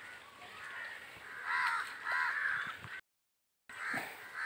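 Crows cawing, a run of several harsh calls about one and a half to two and a half seconds in. The sound cuts out completely for a moment about three seconds in, and the cawing picks up again near the end.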